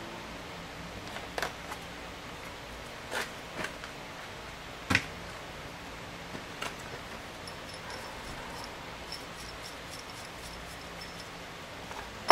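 Scattered knocks and clicks of things being handled on a wooden workbench, the loudest about five seconds in, and a sharp knock at the very end as a galvanized steel carriage bolt is picked up from among the others. Faint, repeated high-pitched chirps from about halfway.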